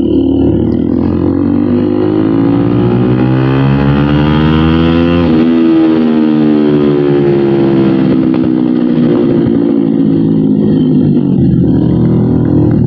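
Bajaj Pulsar NS200's single-cylinder engine through an SC Project aftermarket exhaust while riding: revs climb for about five seconds under acceleration, then the throttle closes and the revs fall away.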